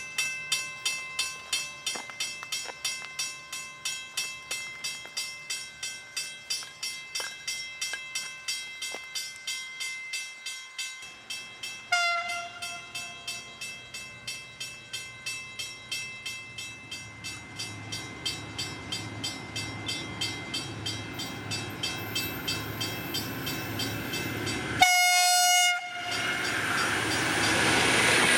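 A railway level crossing bell rings in a steady rhythm, about two or three strikes a second, while a V/Line VLocity diesel multiple unit approaches, its running noise growing louder over the last ten seconds. About 25 seconds in, the train sounds its horn in one loud blast of about a second, the loudest sound, before it rolls past close by.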